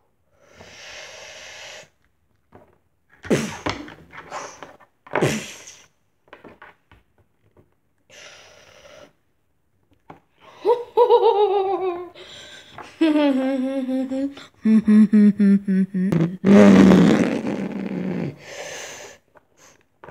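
A person's voice making wordless sound effects for a fight between two action figures: short hissing and sharp mouth noises, then from about halfway long cries that fall in pitch and a wavering, strained voice.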